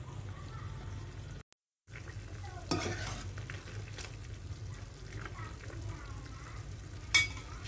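Metal spatula stirring vegetables and meatballs through simmering broth in a non-stick pan, scraping the pan, with a sharp knock of the spatula against the pan near the end. The sound drops out completely for about half a second about a second and a half in.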